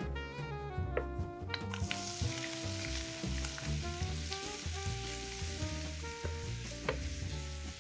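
Chopped onion sizzling in hot oil in a nonstick frying pan; the sizzle starts suddenly about two seconds in and goes on steadily.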